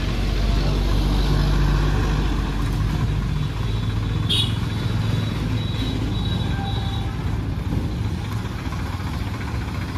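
Diesel engine of a Swaraj 744 XT tractor idling steadily with a deep low hum, while road traffic passes. A brief high-pitched chirp sounds about four seconds in.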